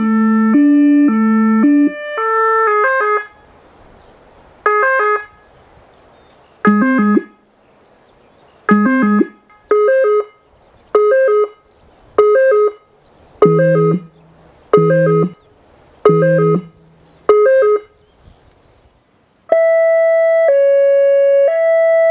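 Whelen Carbide electronic siren sounding the French police two-tone through the Howler low-frequency speaker, with a deep low note under the alternating tones. After about two seconds it switches to the French 'AF' tone, a series of short two-note blasts with pauses between them, some with the deep low note underneath. About two and a half seconds before the end a steady Hi-Lo two-tone starts, alternating high and low about once a second.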